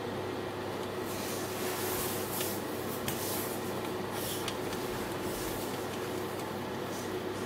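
Steady electric hum of a running kitchen oven, likely its fan motor, with a few faint clicks as the timer buttons on its control panel are pressed.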